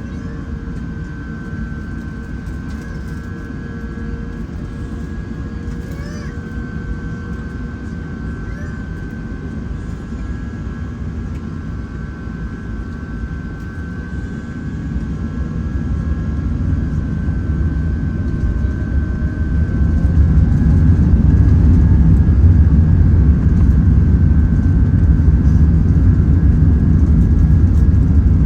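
Airbus A380 engine noise heard inside the cabin: a steady low rumble with a thin, high whine, which swells about halfway through and then holds louder.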